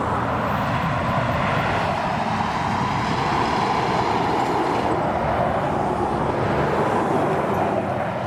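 Highway traffic with heavy trucks passing: a steady rush of tyre and engine noise.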